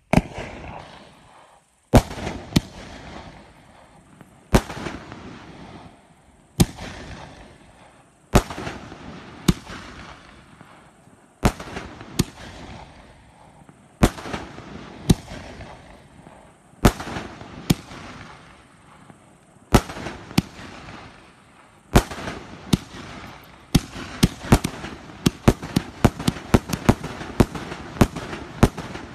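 An 88-shot firework cake with 50 mm tubes firing: sharp reports every second or two, each trailing off, speeding up to several shots a second near the end.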